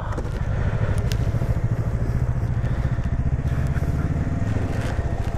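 KTM 390 Adventure's 373 cc single-cylinder engine running at steady low revs while riding.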